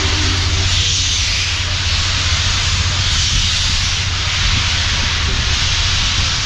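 Union Pacific Big Boy 4014 steam locomotive: the last of its chime steam whistle cuts off within the first second, then a steady loud hiss of steam over a low rumble.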